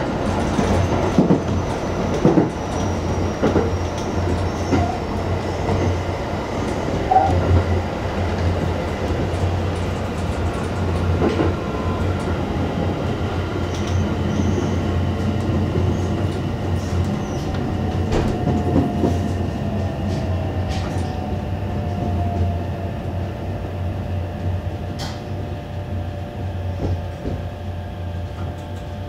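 JR West 225 series electric train heard from the driver's cab, with steady rumble and knocks from the wheels on the rails. From about two-thirds of the way in, an electric whine from the traction motors slides downward and the running noise fades as the train brakes into a station.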